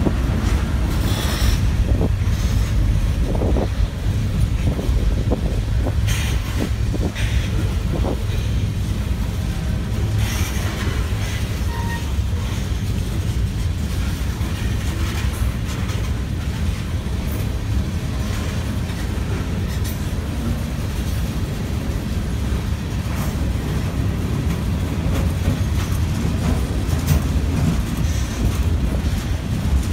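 Norfolk Southern freight train rolling past, its cars making a steady heavy rumble, with sharp clanks scattered through the first ten seconds or so.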